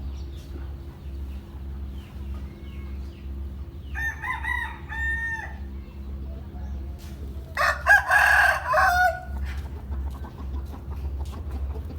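Roosters crowing: one crow about four seconds in, then a louder crow lasting about a second and a half near the middle, over a steady low hum.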